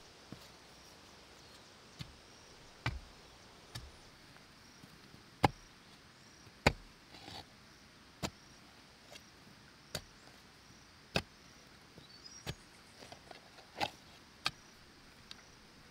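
Long-handled hoe chopping into a bank of dry earth: about fourteen sharp strikes at uneven spacing, roughly one a second, a few of them clearly louder than the rest.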